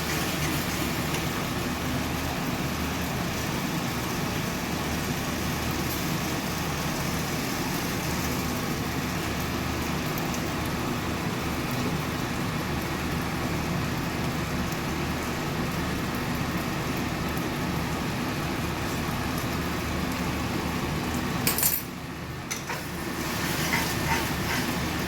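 Steady hiss and low hum of pad thai noodles cooking in a pan on the stove. A sharp click comes about 21 seconds in, the noise dips, and stirring sounds return near the end.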